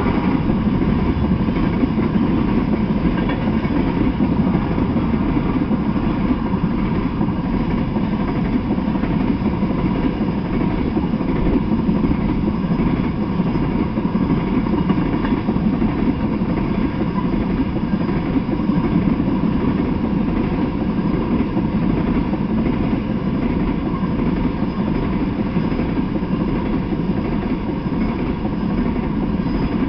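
Freight train of tank cars rolling past: a steady, unbroken low rumble of wheels on the rails.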